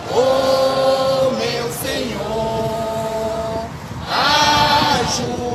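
A group of protesters singing a church protest song together in long, held notes, in two phrases, the second one louder.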